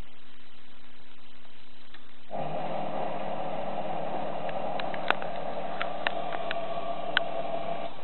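Washing machine drum motor switching on about two seconds in and running steadily with a whine for about five and a half seconds, turning the drum during the wash's water-heating stage; scattered sharp clicks and knocks ride over it, and it stops just before the end.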